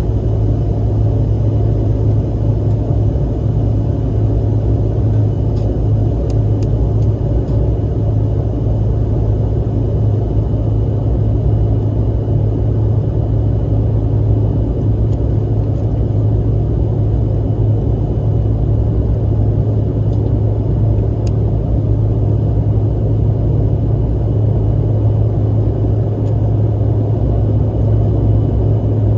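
Steady, loud rumble of a CRJ-900 regional jet's turbofan engines and airflow, heard inside the passenger cabin.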